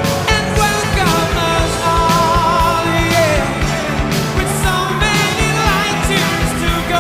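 Loud rock-style background music with a singing voice over a fast, steady drum beat.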